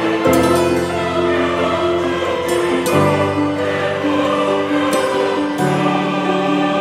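Background music: sustained, choir-like chords that change about every two and a half seconds.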